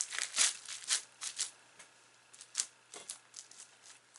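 Sticky slime being squeezed and stretched between the fingers, giving a run of quick wet clicks and crackling pops, dense at first and sparser after about a second and a half.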